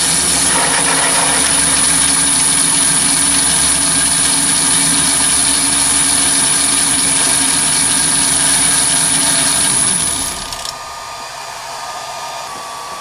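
Chinese mini lathe with a three-phase motor on a VFD, drilling into steel with a 41/64-inch drill and no pilot hole: a steady motor drone with a constant high whine and the noise of the cut, the spindle holding its speed under the load. About ten seconds in, the motor is switched off and the sound falls away as the spindle stops.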